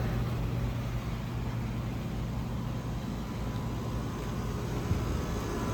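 Commercial air-conditioning condensers running: a steady low hum under even fan air noise.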